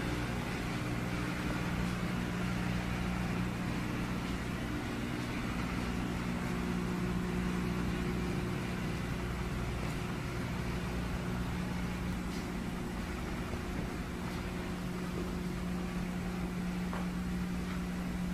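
Steady mechanical hum of a running motor: a low, even drone with a few held tones and a hiss over it, without change.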